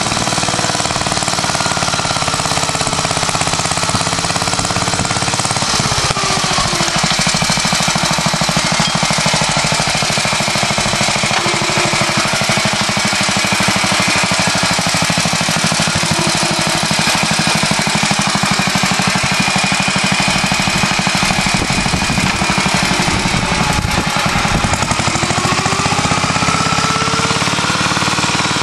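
1947 Clifford Mk1 two-wheeled tractor's JAP engine running steadily under load while it pulls a plough through soil, a loud, fast chattering beat. Its note dips and recovers about six seconds in and again near the end.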